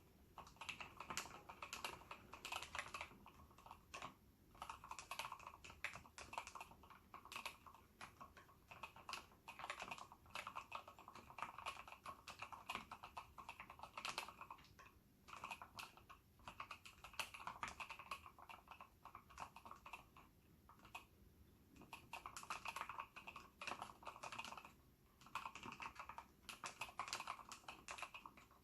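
Typing on a Ninja87 mechanical keyboard in an acrylic case with Gateron Yellow linear switches fully lubed with Krytox 107. The keystrokes come in quick, continuous runs with brief pauses.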